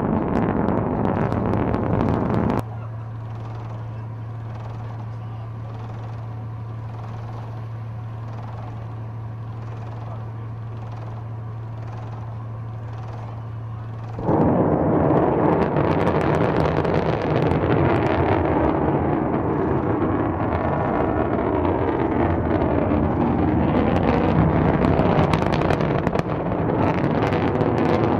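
Missile launches: loud, dense rocket-motor noise, broken by about twelve seconds of a much quieter steady low hum starting about 3 s in. The loud launch noise comes back about 14 s in and holds.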